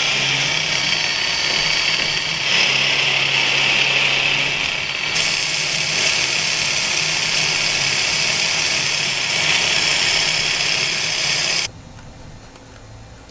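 12 mm carbide end mill side-milling steel on a CNC-retrofitted XQ6232A knee mill, a loud, steady, high-pitched cutting noise with the spindle at 1500 rpm taking a 25 mm deep, 2 mm wide cut. The cutting noise stops abruptly near the end, leaving a faint low hum.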